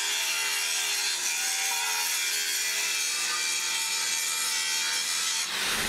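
Electric angle grinder with an abrasive disc grinding a cast-iron pump casting: a steady high whine with a gritty hiss of metal being ground away. It stops abruptly near the end.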